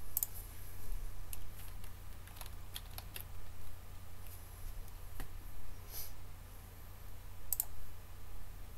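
Computer keyboard keystrokes and clicks, irregular and scattered, as a short word is typed, over a low steady hum.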